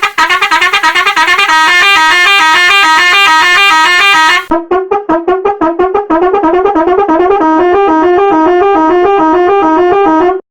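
A horn sound pitched up and down into a fast tune of short, rapid notes. About four and a half seconds in, the tone turns duller and the tune carries on.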